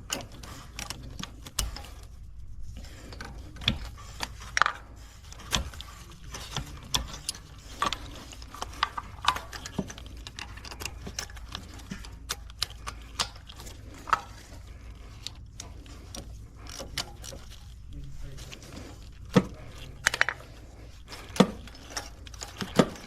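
Hand ratchet clicking in short irregular runs, with metal tools clinking, as new spark plugs are threaded in and tightened.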